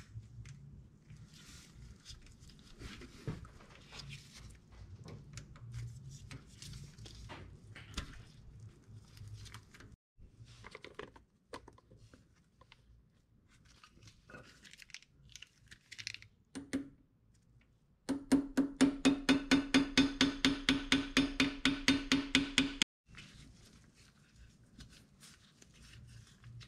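Light clicks and knocks of tools and parts being handled, then, starting about two-thirds of the way in, a power tool runs for about five seconds with a loud, rapidly pulsing buzz, about five pulses a second, and stops abruptly.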